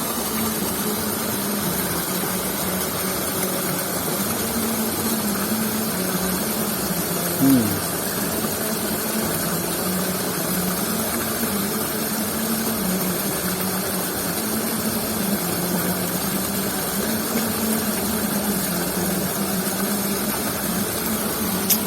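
Steady rushing of water flowing in a ditch channel, with a faint, wavering low hum beneath it and one short falling sound about seven and a half seconds in.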